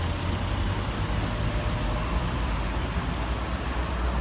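City street traffic: a steady rumble of passing cars and taxis.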